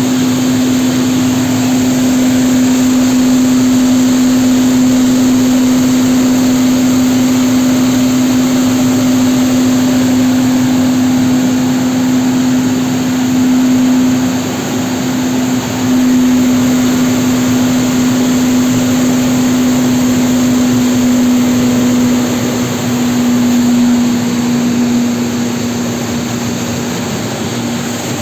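Industrial blowers of a glass tempering furnace line running: a loud, steady hum with one strong held tone over rushing air noise, dipping briefly about halfway through.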